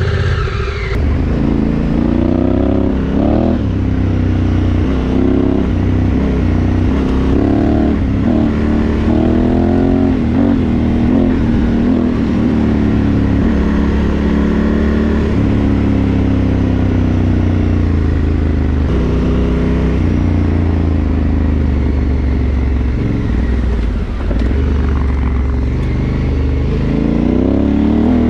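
Adventure motorcycle engine running under way on a gravel road, its pitch rising and falling repeatedly with throttle and gear changes, over steady road and wind noise. The sound changes character about a second in.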